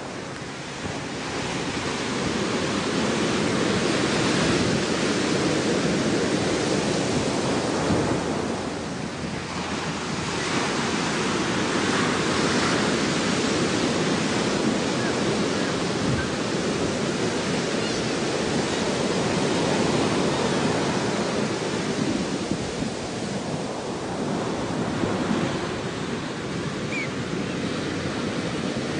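Ocean surf washing on a shore: a steady rush of water that swells and eases in slow surges every several seconds.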